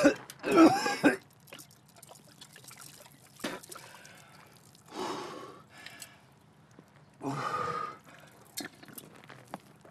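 A worn-out man retching and groaning twice near the start, then water poured from a canteen over his head, splashing and dripping, with short sputtering breaths.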